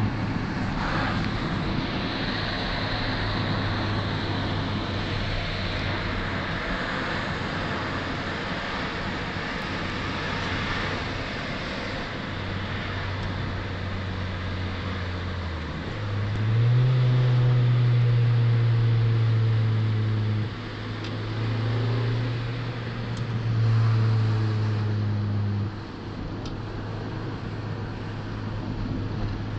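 Honda Civic EJ9 four-cylinder engine, its carburettor gasket bored out, running at a steady speed with a low drone. About halfway in, the revs jump up and it gets louder in three pushes of acceleration, then it settles back to the steady drone.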